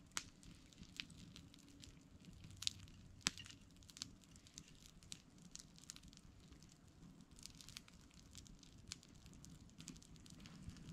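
Small campfire crackling: a dozen or so sharp, irregular pops over a faint low hiss, the loudest two about three seconds in.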